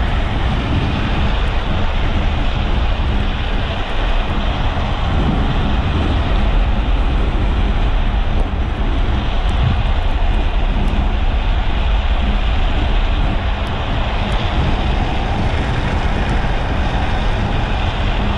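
Steady wind buffeting an action camera's microphone during a fast downhill run at about 45 to 60 km/h, mixed with the rolling noise of a speed trike's wheels on asphalt. A continuous, heavy rumble with no break.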